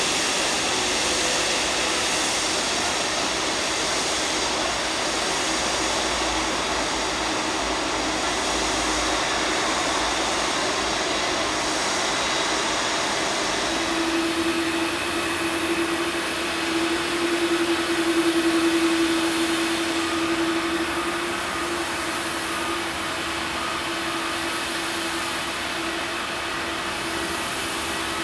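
Airliner jet engines at taxi power: a steady rushing roar. About halfway through the sound changes abruptly, and a droning hum swells and fades.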